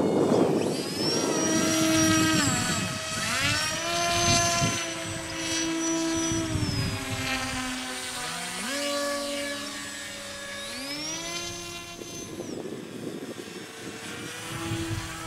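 Radio-controlled model's motor and propeller whining, its pitch gliding up and down between steady stretches as the throttle is worked, and fading toward the end.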